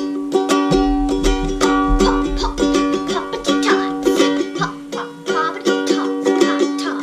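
Background music of quickly plucked strings, a ukulele-like strum of short notes over steady held pitches.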